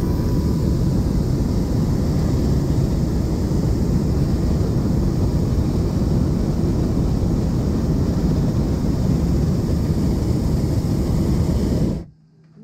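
Hot air balloon's propane burner firing in one long steady blast that cuts off abruptly near the end.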